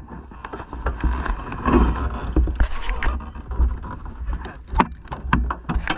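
Onboard sound of an unpowered soapbox cart rolling fast on asphalt: a continuous low rumble and wind rush on the camera microphone, with irregular knocks and rattles from the wheels and chassis over the road surface.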